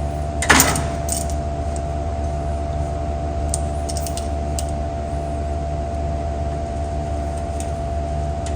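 A sharp metal clack about half a second in, then a few light clicks, from the car door's window-winding hardware being handled and adjusted, over a steady electrical hum.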